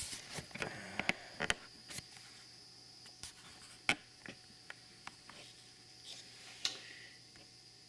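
Scattered sharp clicks and taps of small hard objects being handled, plumbing parts and tools being set up for soldering copper pipe. A cluster comes in the first two seconds, then single knocks about four seconds in and near seven seconds.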